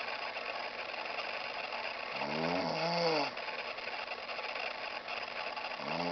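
A sleeping man snoring. One pitched snore, rising then falling in pitch, comes about two seconds in and lasts about a second, and the next snore begins near the end, over a steady hiss.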